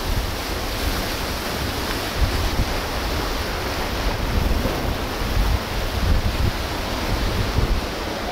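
Sea surf washing over shoreline rocks in a steady hiss, with wind buffeting the microphone in uneven low rumbles.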